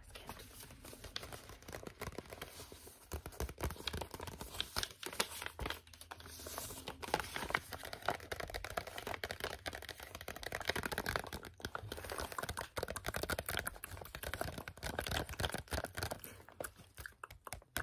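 Paper gift bag crinkling and rustling as it is handled, a dense, irregular crackle.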